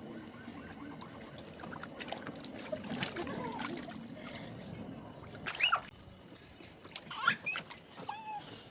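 Water splashing and dribbling in a large plastic bin used as a bath, with a few short, high squeaky calls near the end.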